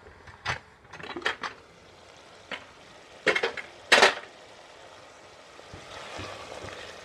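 Metal clinks and knocks of a pressure cooker lid being opened and lifted off the pot: a handful of sharp clanks over the first four seconds, the loudest about four seconds in. A faint sizzle of the keema starts near the end.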